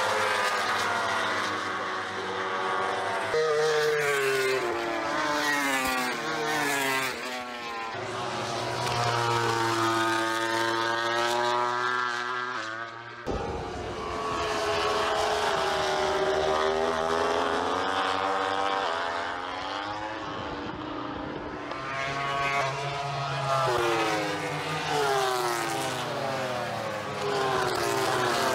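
MotoGP racing motorcycles with 1000 cc four-cylinder engines passing at speed, the engine pitch sweeping up and down as the bikes approach, pass and change gear. The sound jumps abruptly from one pass to the next a few times.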